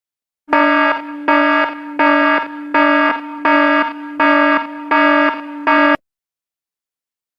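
Electronic alarm buzzer sounding in eight quick pulses at one steady pitch, about one and a half a second, then cutting off abruptly.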